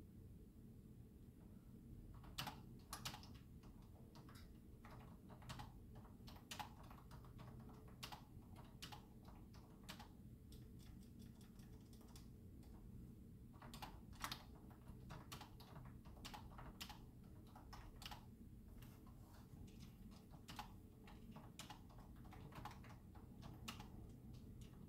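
Faint typing on an external computer keyboard: irregular runs of key clicks starting a couple of seconds in, with a short pause about halfway, over a low steady room hum.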